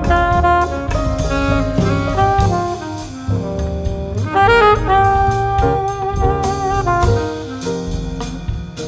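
Instrumental break of a slow jazz ballad: saxophone playing the melody over piano, upright bass and drums.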